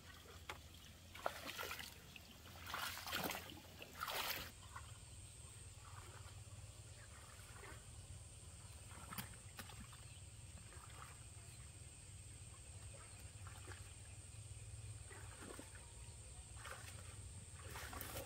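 Leaves and vines rustling and brushing in three short bursts in the first few seconds, then faint scattered rustles over a quiet rural background with a thin, steady high-pitched tone.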